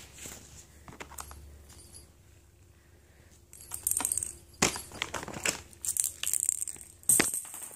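A cat toy jingling and rattling in quick bursts as a cat bats and wrestles with it, starting about three and a half seconds in, with two sharp knocks.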